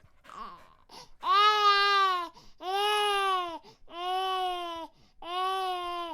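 Infant crying in a run of four long, drawn-out wails, each about a second long, with quick gasping breaths between them.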